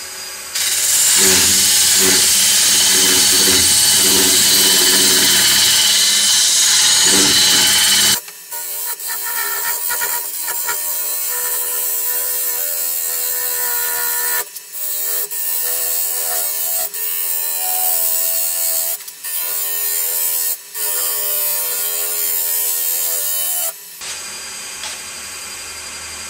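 A turning tool cutting into a large plane-wood bowl blank spinning on a wood lathe. The first eight seconds are a loud, rough scraping cut; then the sound turns lighter with a steady hum, broken by several brief pauses as the tool lifts off, and quietens near the end.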